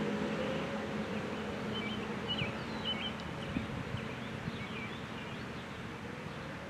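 Distant outdoor warning sirens sounding faintly as a low steady tone that swells and fades slightly, with a lower tone dropping out about a second in. A small bird chirps repeatedly over it.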